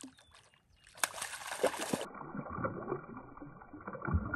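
Hooked trout splashing and thrashing at the water's surface as it is brought to the bank, then water sloshing and splashing around hands and a landing net as the fish is handled in the shallows; the sound turns duller about halfway through.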